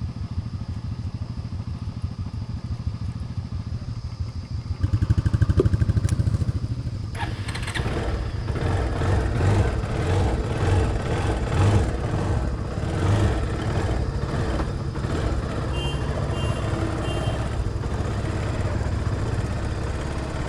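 Motorcycle engine running low and steady, then revving up about five seconds in. After that it keeps running under load with many short rattling knocks, typical of a bike riding over a rough, stony dirt road.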